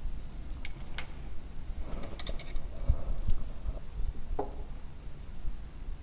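Scattered small clicks and clinks of metal and glass loading gear being handled while a black-powder muzzle-loading pistol is loaded, with one ringing clink a little past the middle.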